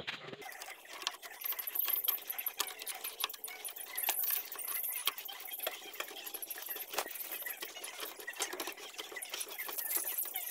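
Hydraulic bottle jack being worked by hand under a vehicle's rear axle: irregular light metallic clicks and taps, over continuous high chirping.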